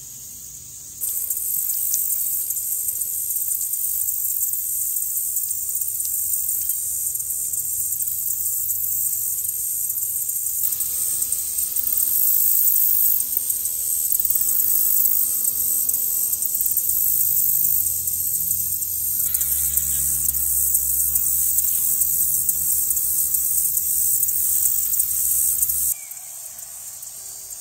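Honeybees buzzing close by at the water's edge, over a loud, steady, high-pitched insect chorus. Both cut off suddenly near the end.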